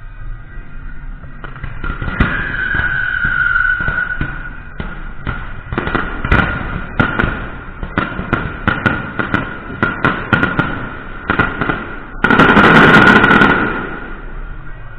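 Temple fireworks and firecrackers going off: sharp bangs in rapid, irregular succession, then a loud, dense crackling burst about twelve seconds in that dies away over the next second or two. A steady high tone sounds underneath throughout.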